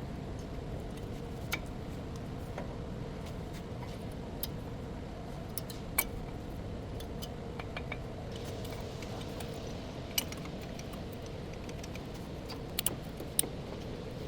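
Scattered light metallic clinks and ticks, a few at a time, over a steady low hum.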